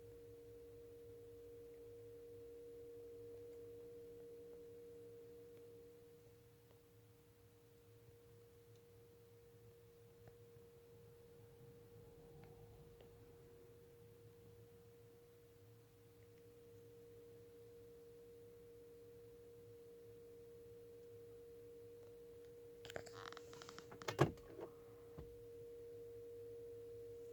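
Faint, steady electronic tone from a Volkswagen, held on two constant pitches: the unexplained beep noise the owner is trying to trace. It weakens for a while in the middle. Near the end comes a short cluster of clicks with one sharp knock.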